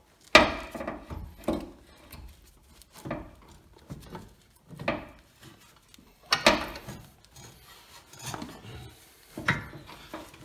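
Splined outer end of a new front CV axle being worked into a Honda Civic's steering knuckle hub by hand: irregular metal clunks, about seven in ten seconds, with scraping and rubbing between them as the splines are fiddled into mesh.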